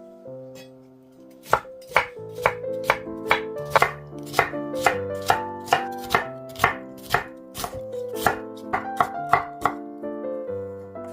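Knife chopping on a cutting board, a steady run of sharp strokes about two or three a second, starting a little over a second in and stopping near the end, over soft background music.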